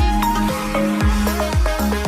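Background music with a steady beat: a deep drum about twice a second under short pitched melody notes.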